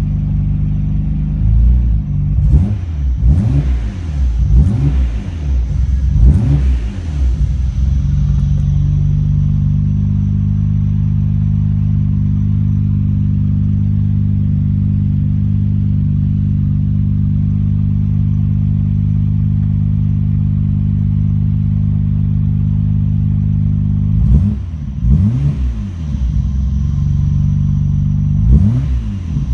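Nissan Skyline GT-R R32's twin-turbo RB26 straight-six idling steadily, with several quick throttle blips that rise and fall in the first several seconds and a few more near the end.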